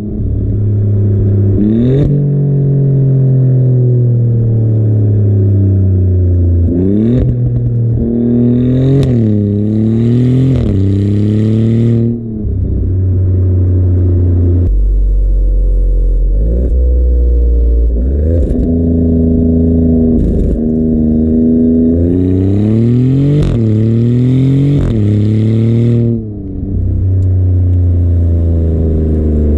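Exhaust of a 2024 Maserati GranTurismo Modena's twin-turbo 3-litre Nettuno V6 under way, heard at the tailpipes. The engine note climbs and falls in pitch over and over as the car accelerates and changes gear, with a steadier, lower-pitched stretch in the middle.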